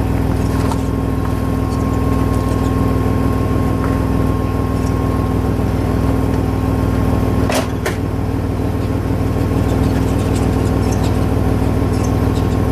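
Vehicle engine running steadily at low revs as it pulls slowly on a nylon rope tied to a heavy log, with a brief sharp click about seven and a half seconds in.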